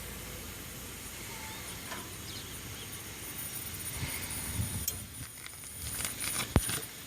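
Faint hiss of R-410A refrigerant through the gauge hoses and valves as the system is charged, with a few handling knocks and one sharp click near the end.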